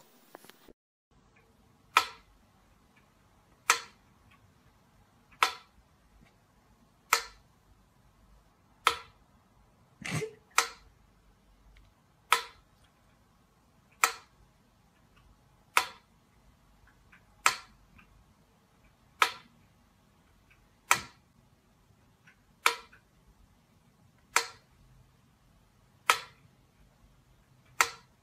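A mechanical pyramid metronome ticking slowly and evenly, one sharp click about every 1.7 seconds. There is one duller knock about ten seconds in.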